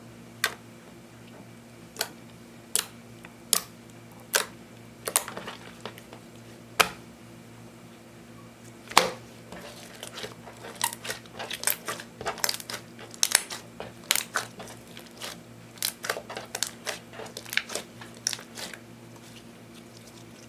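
Eyeshadow-tinted clear slime being handled, making sharp clicks and pops: single ones about a second apart at first, then a denser run of crackling clicks from about nine seconds in that stops shortly before the end.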